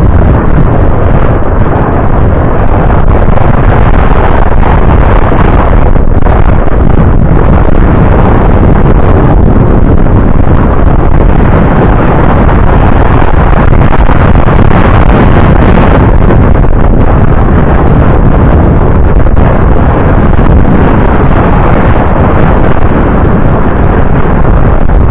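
Heavy wind buffeting the microphone of a bicycle-mounted camera while riding, a steady loud rumbling noise.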